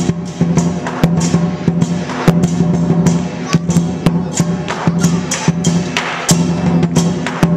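Chinese lion dance percussion: a large lion drum beaten in a fast, driving rhythm with clashing cymbals, several sharp strikes a second over the drum's repeated low boom.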